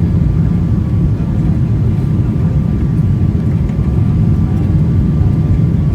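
Airliner cabin noise during landing: a steady, loud low rumble of engines and rushing air, with a faint steady higher tone running through it.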